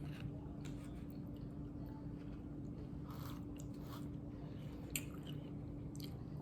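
A person chewing food close to the microphone, with scattered short wet mouth clicks and soft smacks. A steady low hum runs underneath.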